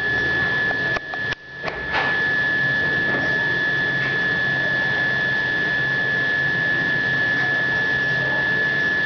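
A steady hiss and low hum with a constant high-pitched whine. It cuts out briefly twice, about a second in.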